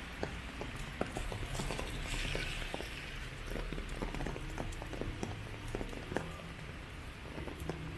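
Raindrops tapping irregularly on an umbrella, many sharp ticks over the steady hiss of falling rain.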